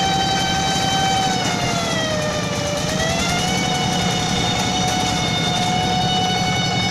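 Paddy-field tractor running under load, its engine chugging under a loud high-pitched 'nging' whine. The whine drops in pitch about two seconds in and climbs back to its steady note a second and a half later.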